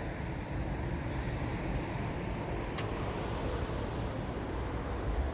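Steady road traffic: cars driving slowly over a snowy bridge, a continuous low rumble with tyre hiss. There is one sharp click about three seconds in.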